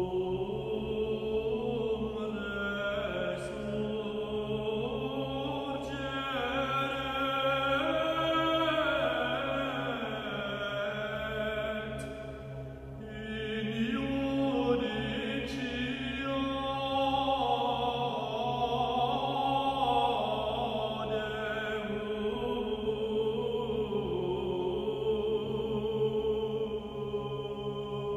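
Slow sung devotional chant with long held, gently gliding notes over a steady low drone.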